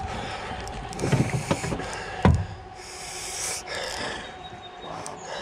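Handling noise while a hooked fish is fought on a spinning rod from a kayak: a few loud thumps about one to two seconds in, between rustling and short bursts of hiss.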